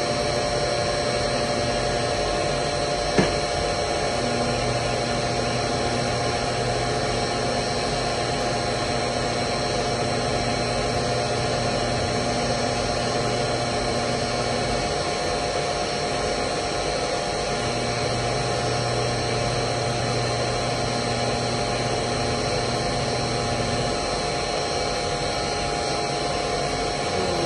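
Zumex orange juicer's electric motor humming in two spells: it comes on about four seconds in, stops around fifteen seconds, then runs again for about six seconds. It is being run with a magnet held to its door safety sensor. A single click comes just before the first run, over a steady machine drone with several steady tones.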